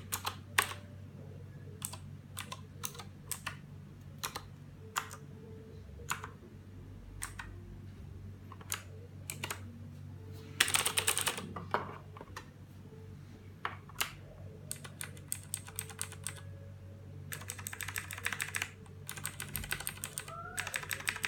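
Redragon K300 mechanical keyboard with clicky blue switches being typed on. Keys are pressed singly at first, then come two quick runs of fast typing, one about ten seconds in and one from about seventeen seconds on.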